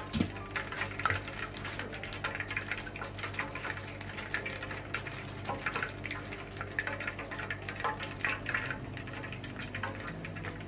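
Seasoned venison tongue pieces deep-frying in hot oil: a dense, irregular crackling and sputtering over a steady low hum.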